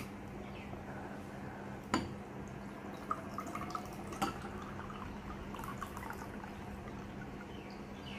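Milk pouring and dripping from an opened tin can into a glass bowl, with a few sharp clicks: one at the start, one about two seconds in and one about four seconds in.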